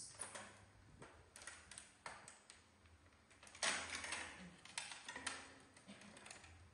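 Faint clicks and crackles of a clear plastic clamshell snack container being handled, with a louder rustle about three and a half seconds in.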